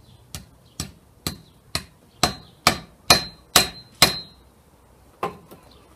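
Hammer blows with a metallic ring, about two a second: nine strikes growing louder, then one more after a pause of about a second.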